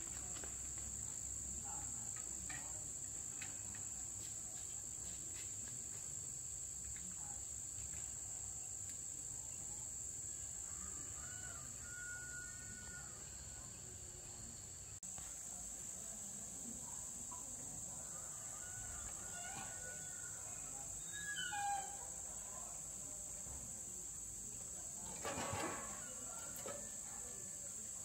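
Steady high-pitched drone of an insect chorus, with a few faint short calls around the middle and two brief louder noises in the second half.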